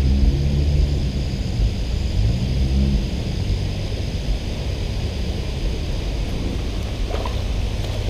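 Low engine rumble of passing motor-vehicle traffic, its pitch rising about two to three seconds in, then settling into a steady drone.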